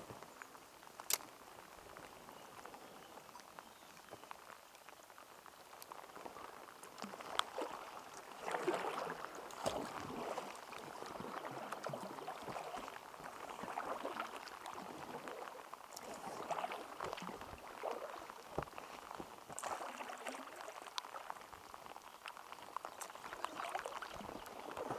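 A paddle dipping and splashing beside an inflatable packraft, a stroke about every one and a half to two seconds, starting some eight seconds in. Before that there is only a soft water and rain patter with scattered sharp ticks.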